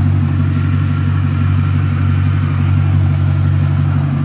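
Cadillac STS-V's supercharged 4.4-litre Northstar V8 idling steadily through a Magnaflow exhaust with an X-pipe and exhaust cutouts, giving a deep, even burble.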